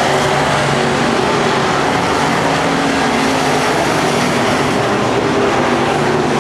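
Several dirt-track modified race cars racing around the oval at speed, their engines running together in a loud, steady din of overlapping engine notes that shift in pitch as the cars pass and lift through the turns.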